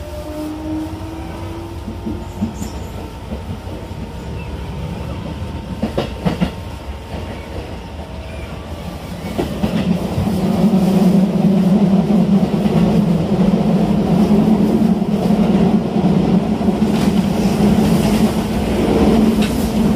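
Shin-Keisei 8800 series electric train heard from inside the car while running, with a faint rising motor tone near the start. From about ten seconds in, the running noise grows louder and becomes a steady drone over a rumble, with the clatter of wheels on rail.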